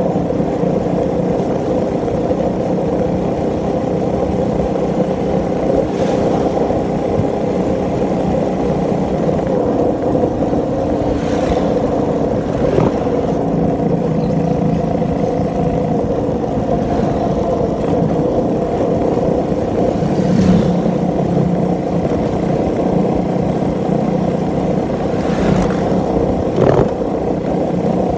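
Motorcycle engine running steadily on the move, its hum mixed with road and wind noise on the phone's microphone. A few brief knocks or rattles are heard along the way.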